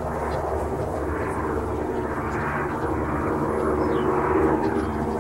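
A steady engine drone under a rushing noise that swells and fades.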